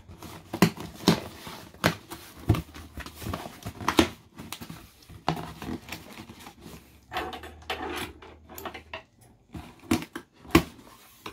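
Cardboard shipping box being opened by hand: scissors slitting the packing tape and the flaps pulled apart. Irregular knocks, taps and scrapes of cardboard, the loudest about four seconds in and near the end.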